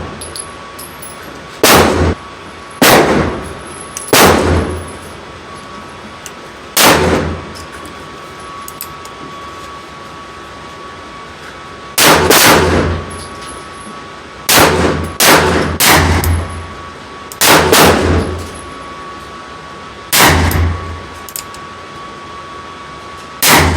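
A series of about ten .45 Colt handgun shots, irregularly spaced with a few in quick pairs, each a sharp crack with a short ring after it.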